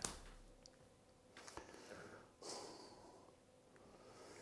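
Near silence with a man's faint breathing: two soft breaths about a second apart.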